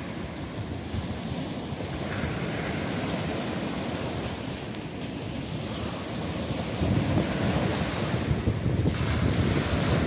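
Surf from a choppy, storm-stirred sea breaking and washing over stones at the water's edge, louder from about seven seconds in as bigger waves break close by.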